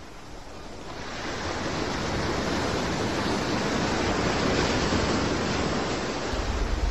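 Steady rush of sea and wind on the microphone, swelling over the first couple of seconds and then holding even, with no distinct splash or thump.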